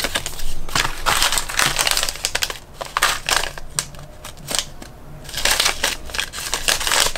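Packaging crinkling and rustling in irregular bursts as the parts of a model kit are handled and unwrapped.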